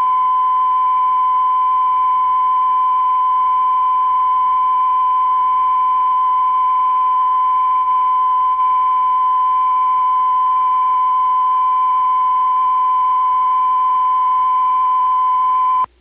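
Steady 1 kHz line-up test tone sent with SMPTE colour bars on a broadcast feed, one unbroken pitch. It cuts off abruptly near the end, leaving only a faint hiss.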